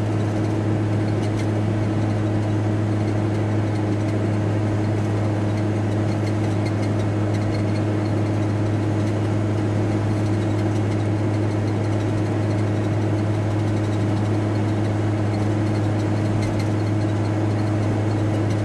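VW T4 Transporter van driving at a steady speed, heard inside the cab: a constant low engine drone over road noise, unchanging throughout.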